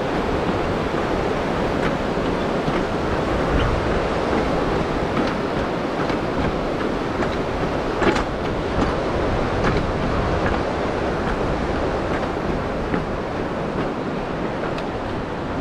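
Tahoma Creek, a glacial stream, rushing below in a loud, steady wash of water noise, with a sharper knock about eight seconds in.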